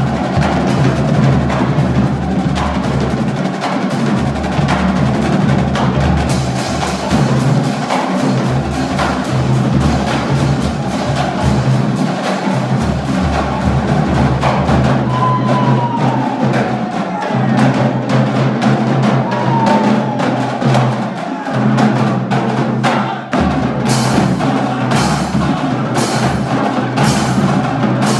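Marching drumline playing a fast, loud cadence on snare drums, bass drums and cymbals. In the last few seconds sharp accented hits come at a steady pulse, a little under one a second.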